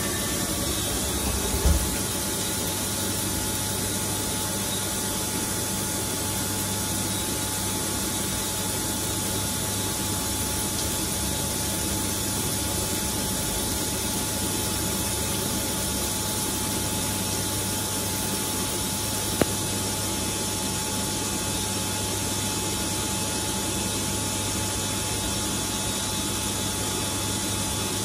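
CNC lathe running steadily while turning steel, giving an even machine hiss over a steady hum. There is a short knock about two seconds in and a single sharp click near the middle.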